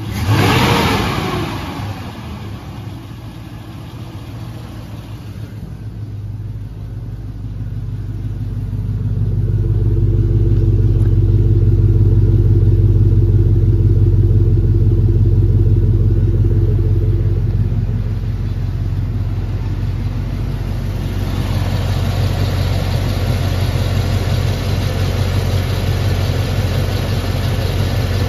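A 2003 Cadillac Escalade's 6.0-litre LQ9 V8 gets a quick rev just after the start that falls back, then idles steadily. In the middle stretch it is heard at the dual exhaust tips, louder and deeper. Near the end it is heard in the engine bay, with more of the mechanical top-end sound.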